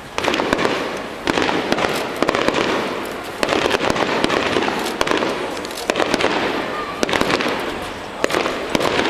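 Aerial fireworks display: a string of loud shell bursts, one every second or two, each followed by crackling that dies away.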